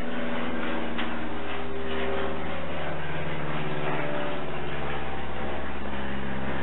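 A steady low hum made of several pitches, with a few faint knocks.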